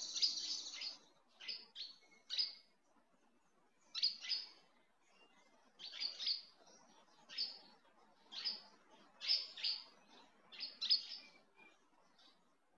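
Small birds chirping: short, high chirps in little clusters, about one cluster a second.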